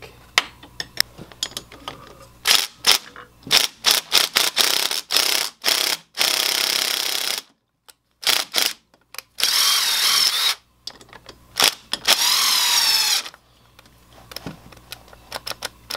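Ridgid cordless impact driver fired in a string of short trigger bursts, then run in three longer pulls of a second or so each with its pitch wavering, working loose the stuck bolt of a valve spring compressor on the cylinder head.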